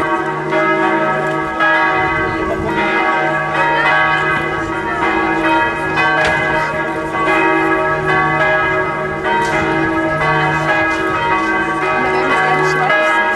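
Church bells ringing in a continuous peal, several bells struck one after another with their tones overlapping.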